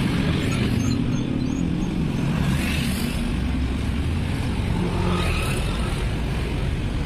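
Road traffic driving past: motorcycles and cars with their engines running, with the sound of passing vehicles swelling and fading.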